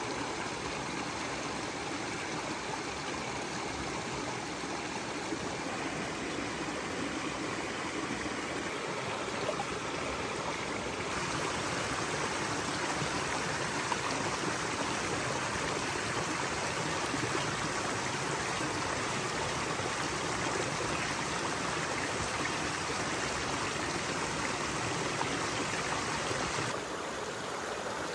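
Small rocky forest stream running, a steady rush and babble of water over stones, brightening about eleven seconds in and softening again near the end.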